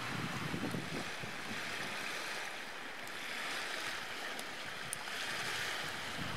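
Steady rush of wind and waves on a lake, with a few faint ticks.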